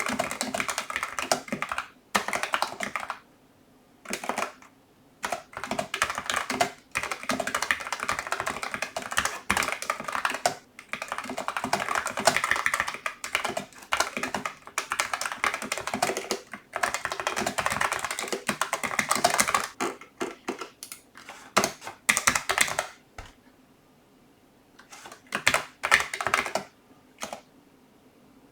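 Typing on a Logitech MX Mechanical Mini keyboard with tactile brown mechanical switches: quick runs of key clicks in bursts, broken by a few pauses of a second or two.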